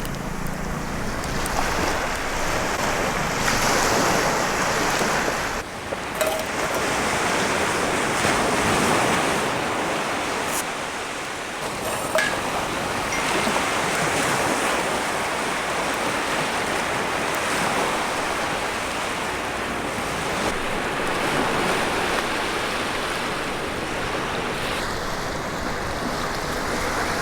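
Sea waves washing steadily on the shore, with wind.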